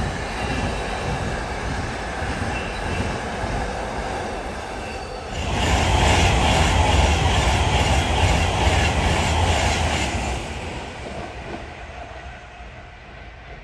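Container freight train wagons rolling past over the rails, with a steady rumble and a faint wheel squeal. The noise gets much louder suddenly about five seconds in, then fades away near the end.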